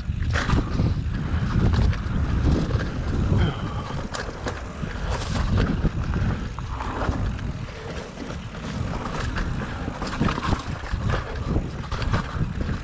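Mountain bike riding fast down rough singletrack: wind rushing over the microphone and the tyres rumbling over the trail, with frequent short clicks and rattles from the bike.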